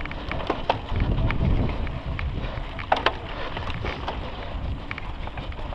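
Wind buffeting the microphone of a mountain bike's handlebar camera, with the bike rattling over a rough dirt trail: scattered sharp clicks and knocks, the loudest about three seconds in.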